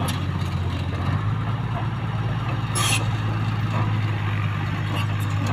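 Komatsu D31P crawler bulldozer's diesel engine running steadily as the machine tracks forward; its note shifts about a second in, and a short hiss sounds about three seconds in.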